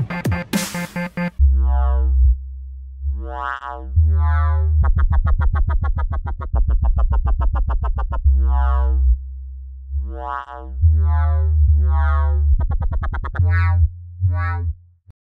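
Dubstep track's outro: the full beat with drums drops out about a second and a half in, leaving synth chord stabs over a deep held sub-bass, with a rapid stuttering synth passage in the middle. The music stops just before the end.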